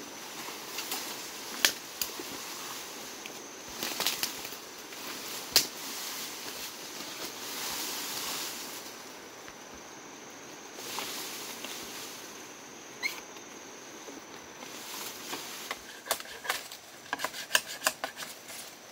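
Bamboo leaves and stems rustling, with scattered sharp clicks and snaps and a quick run of clicks near the end.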